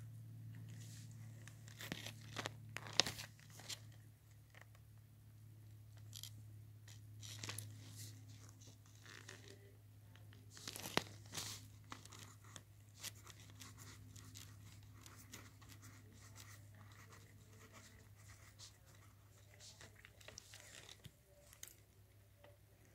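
Pencil scratching across lined notebook paper while words are handwritten: short irregular strokes with a few louder scrapes and clicks, over a steady low hum.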